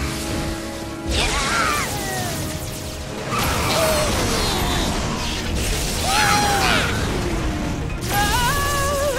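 Cartoon action soundtrack: background music mixed with mechanical and crashing robot sound effects, swelling in noisy surges about a second, three seconds and eight seconds in, with gliding tones rising and falling above them.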